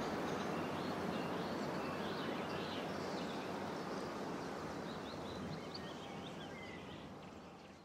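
Outdoor ambience: a steady hiss of background noise with faint bird chirps scattered through it, slowly fading out near the end.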